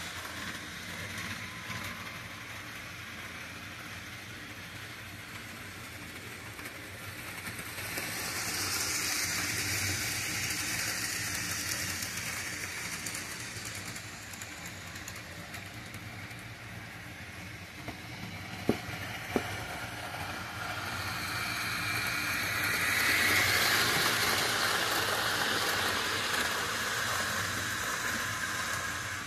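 HO scale model freight cars rolling on sectional track with a steady rattling rush that swells twice as trains pass close. Two sharp clicks come close together about two-thirds of the way through.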